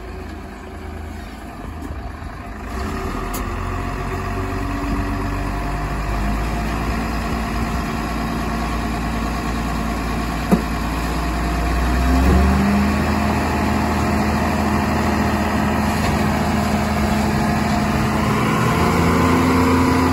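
Heavy diesel engine of the earthmoving machinery running at low speed, then revving up about twelve seconds in and running louder and higher from there. A single short click sounds just before the rev-up.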